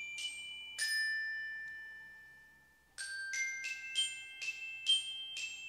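Short outro tune of ringing glockenspiel notes. Two notes ring out and fade, followed by a brief silence, then a quicker run of about eight notes, each left ringing.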